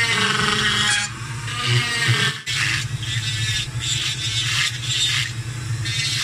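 Dremel rotary tool running, its bit grinding into a wooden carving: a steady motor hum under a scratchy grinding that swells and eases as the bit bites. The sound drops out for an instant about two and a half seconds in.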